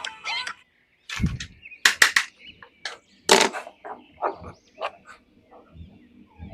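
Plastic toy packaging being opened and handled: an irregular string of sharp clicks and cracks, with a dull thump about a second in.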